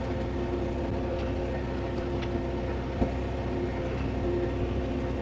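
Tractor engine running steadily as the tractor is driven, heard from inside the cab, with a single short knock about three seconds in.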